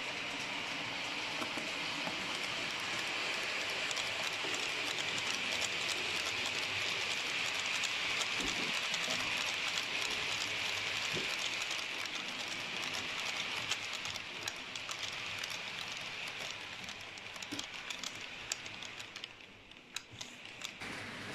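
H0-scale model freight train, hauled by a red ÖBB electric model locomotive, running along the layout's track: a steady whine with many small clicks from the wagons' wheels. It fades away about 19 seconds in as the train passes.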